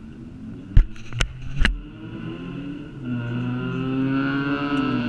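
Three sharp knocks in quick succession about a second in, the first the loudest, over a low vehicle hum; from about three seconds in a louder, steady droning tone with several pitches takes over.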